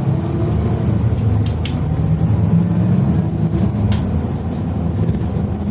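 A road vehicle driving along: a steady, low road and engine noise, with a couple of faint short clicks.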